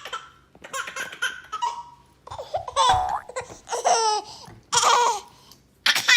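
A baby laughing in repeated outbursts, with high squealing giggles about a second apart.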